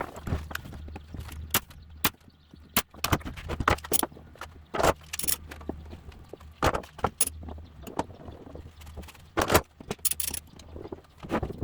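Irregular sharp clicks, clinks and knocks of metal tools and clamps being handled against a wooden box during a glue-up, over a steady low hum.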